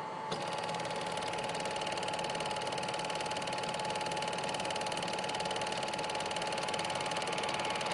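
Film projector running: a steady, fast mechanical clatter with a constant whine.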